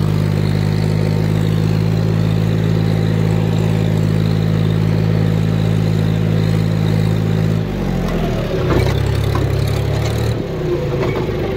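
Diesel tractor engine running at steady revs. About eight seconds in its pitch drops as the revs fall, and near the end the steady note breaks off.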